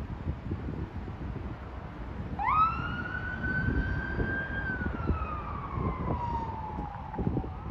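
Emergency vehicle siren wailing: a single tone sweeps up quickly, holds, then glides slowly down over about three seconds, and starts to rise again near the end, over a steady low rumble of wind and background noise.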